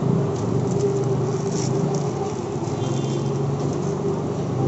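A steady low mechanical hum over a background noise haze, with a few light clicks about a second and a half in.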